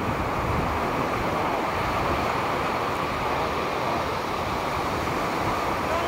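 Small sea waves breaking and washing up a sandy shore in a steady rushing hiss, with wind on the microphone.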